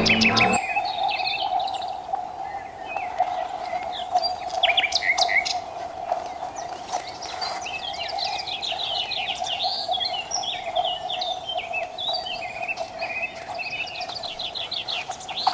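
Wild birds chirping and singing, with many short, quick notes and trills overlapping throughout, over a steady low hum.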